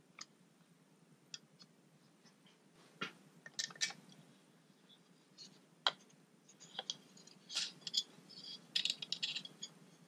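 Fingers and fingernails working at the fan's small cable connector on a Late-2012 Mac mini logic board to unplug it: faint scattered clicks and scratchy scraping of plastic, busiest in the second half.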